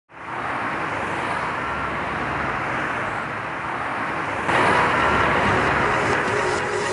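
Road traffic noise, a steady wash of passing vehicles that fades in at the start and grows louder a little past halfway.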